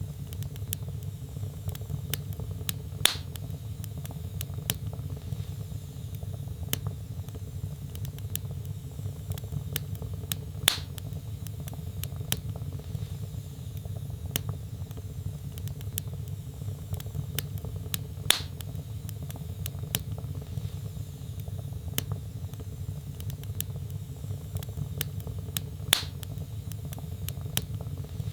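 Wood logs burning in a fireplace: a steady low rumble of flame with frequent small crackles and four louder pops, evenly spaced about seven and a half seconds apart.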